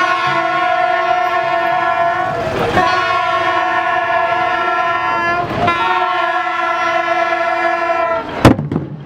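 A horn sounds a steady multi-note chord in three long blasts of about three seconds each, with brief breaks between them. Near the end come sharp, loud strikes on a large drum beaten with a stick.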